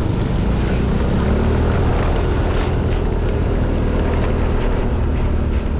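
Motor scooter engine running steadily while riding, with wind rushing over the microphone.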